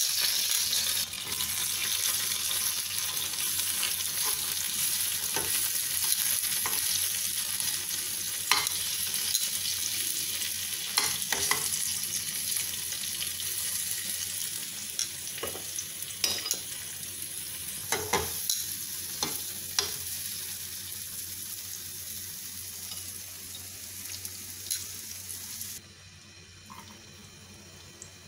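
Frying pan of onions in sauce sizzling on a gas burner, with scattered sharp clicks and taps of metal tongs against the pan as the onions are turned. The sizzle drops suddenly to a quieter hiss a couple of seconds before the end.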